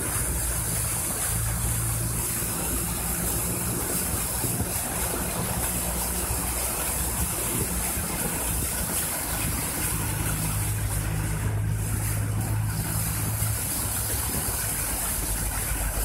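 Steady rain and water running on a flooded street, heard from inside a car, over the low hum of the car's idling engine, which grows louder near the start and again about two-thirds through.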